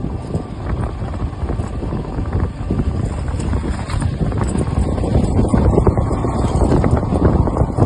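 Wind buffeting the microphone on a moving motorcycle: a dense low rumble that grows louder in the last few seconds.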